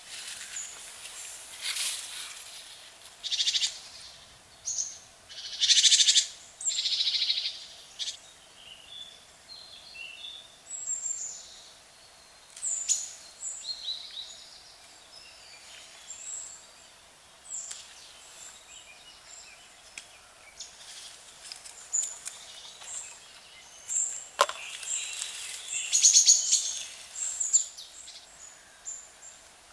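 Early-morning birdsong: several birds calling and singing in short bursts throughout, over a faint steady hum.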